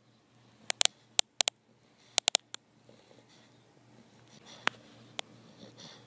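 A sleeping bulldog's light, soft snoring breaths, broken by clusters of sharp clicks and crackles in the first half and two single clicks near the end.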